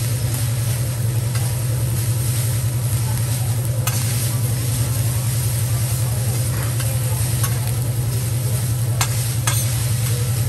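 Fried rice sizzling on a steel teppanyaki griddle as it is chopped and tossed with two metal spatulas, with a few sharp spatula clacks on the steel, one about four seconds in and two near the end. A steady low hum runs underneath.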